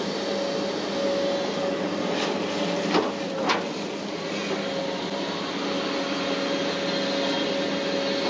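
Hitachi 850LC excavator's diesel engine and hydraulics running steadily as the bucket is worked, heard from inside the cab, with a steady tone in the noise. Two sharp knocks about three seconds in, half a second apart.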